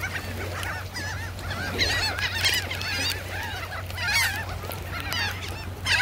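A flock of birds calling, many short rising-and-falling cries overlapping one another, with denser bursts of calls about two seconds in, about four seconds in, and near the end.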